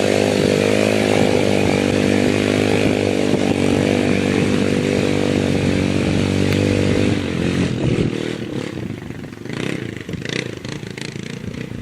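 ATV engine running at steady high revs for about seven seconds, then easing off to a quieter, uneven sound with a few knocks near the end.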